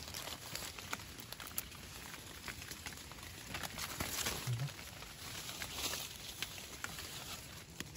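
Rustling and footsteps in wet leaf litter on a forest floor, with scattered crackles and ticks of leaves and twigs being stepped on and brushed. A brief low hum of a voice comes about four and a half seconds in.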